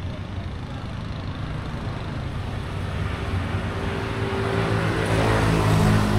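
A motor vehicle's engine approaching over market background noise, growing steadily louder from about halfway through and loudest near the end.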